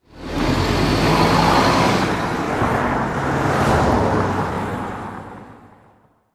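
Road traffic with a vehicle engine's steady low hum, fading in at the start and dying away near the end.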